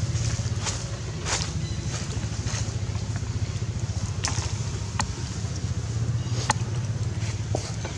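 A steady low engine-like rumble with a fast flutter, with several short sharp high clicks or squeaks at irregular intervals.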